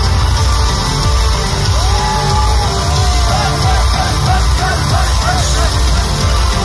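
Loud live synthwave played by a band on synthesizers and a drum kit, driven by a heavy pulsing bass beat. A run of short high notes rising and falling sits over it in the middle.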